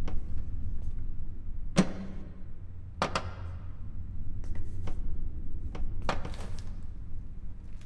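Sharp mechanical clunks and clicks of morgue equipment being handled, the loudest about two seconds in with a short ringing tail and another a second later, over a steady low rumbling drone.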